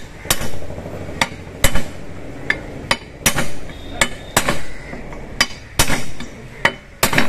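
Hammer blows on a metal shaft used as a drift, driving a new bearing into a top-load washing machine's drive hub housing. There are about fourteen sharp, irregular metal-on-metal knocks, roughly two a second, and the bearing seats fully.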